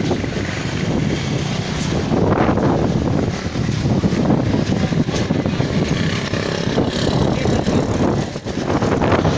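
Strong dust-storm wind gusting and buffeting the microphone: a loud, unsteady rushing noise, heaviest in the low end.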